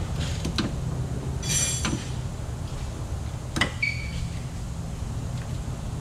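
Steady low hum of a repair shop, broken by tool and metal-part noises from work under a car on a lift: a short ringing clink about one and a half seconds in, then a sharp knock past halfway, followed at once by a brief high squeak.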